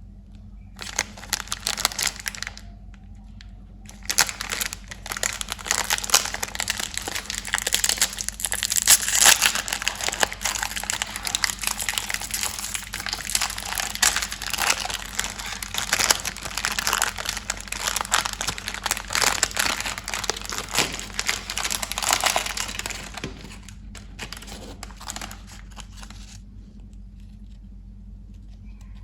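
Crinkly plastic candy wrappers and packaging being handled and opened by hand: a short burst of rapid crackling, a pause, then almost continuous crinkling that thins out and stops a few seconds before the end, over a steady low hum.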